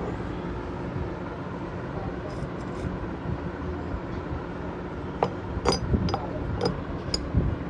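Metal parts and tools clinking sharply several times over a steady low hum, the clinks coming in the last third.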